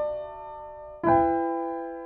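Slow background piano music: one chord fading, then a new chord struck about a second in and ringing out.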